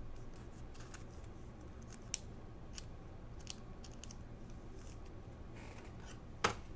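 Sparse light clicks and ticks from trading cards being handled, with a sharper click a little over two seconds in and the loudest one near the end, over a low steady hum.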